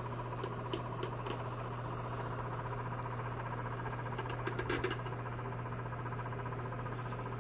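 Small electric cup turner motor running with a steady low hum as it slowly rotates a tumbler. A few light clicks come in the first second or so, and a quick cluster of them about four and a half seconds in.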